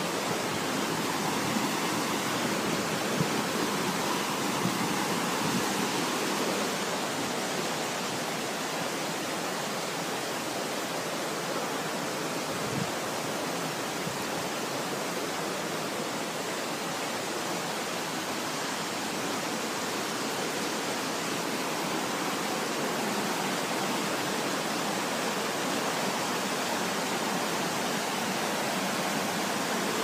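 Steady, unbroken rush of fast-flowing water from a waterfall and the whitewater river below it.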